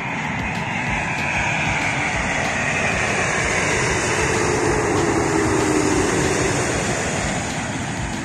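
Twin-engine jet airliner flying low overhead on final approach with its landing gear down, its engines running at approach power. A high whine falls in pitch as it nears, and the noise builds to its loudest a little past the middle and then begins to fade.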